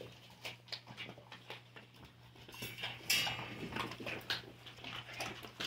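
Dogs crunching on raw chicken feet: faint, irregular crunches and clicks, with the loudest crunch about three seconds in.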